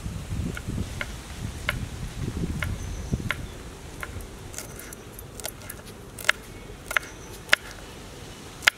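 Knife chopping green chillies on a wooden cutting board: a row of sharp taps about once or twice a second, the last few louder.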